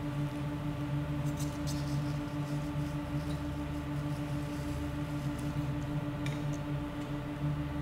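Steady low drone of several held tones, slightly pulsing, with a few faint ticks, about a second and a half in and again about six seconds in.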